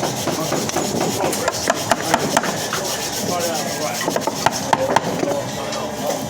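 Chisel cutting a mortise in wood: steady scraping of the blade in the timber, with sharp knocks at irregular intervals.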